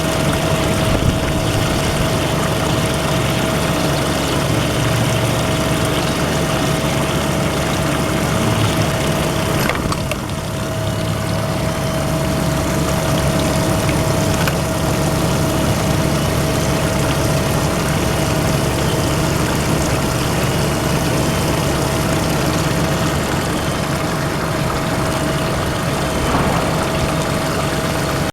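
CNC centerless grinder running an in-feed grinding cycle: a steady rushing noise with a constant whine over a low hum, dipping briefly about ten seconds in.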